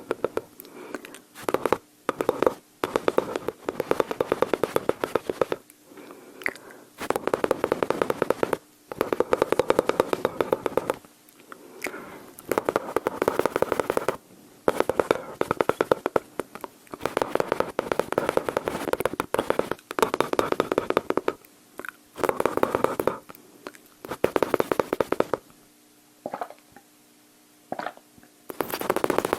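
Close-miked mouth sounds imitating gunfire: bursts of rapid clicking pops, each lasting one to two seconds, with short pauses between them, like machine-gun fire done with the tongue and lips.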